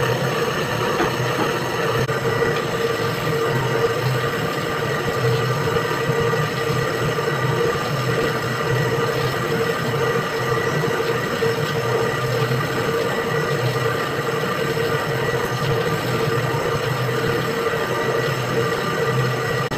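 Commercial dough mixer running steadily as it kneads a large batch of dough in its metal trough: an even motor hum with a few steady tones over a noisy mechanical bed.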